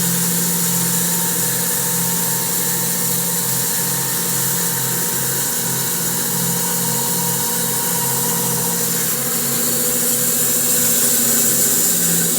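Electric bandsaw mill sawing through a spalted maple log with a carbide-tipped band blade: a steady motor hum under the even hiss of the blade cutting.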